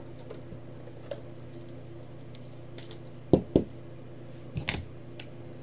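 Clicks and knocks of a clear plastic card holder being handled, with two sharp knocks a little past the middle and a smaller cluster of clicks about a second later, over a steady low hum.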